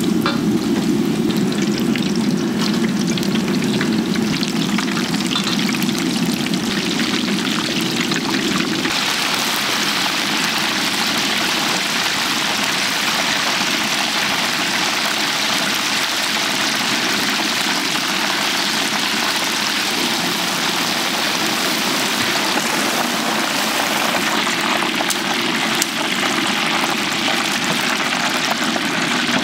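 Oil sizzling steadily as food deep-fries in a large cauldron. A low steady hum under it stops about nine seconds in, and the sizzle then turns brighter and fuller.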